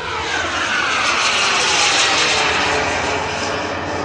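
KingTech K-210 model jet turbine of a large radio-controlled F-86 Sabre making a fly-by: a loud jet hiss with a whine that falls in pitch as it passes, loudest about two seconds in.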